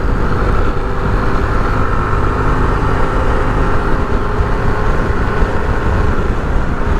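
Steady engine and road noise from a vehicle riding through city traffic.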